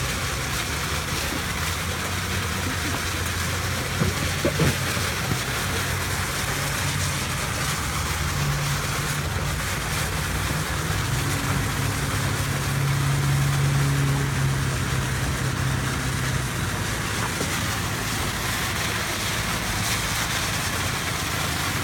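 Lawn sprinkler spraying water in a steady hiss, over a low engine-like hum that grows louder for several seconds in the middle. A few sharp knocks about four seconds in.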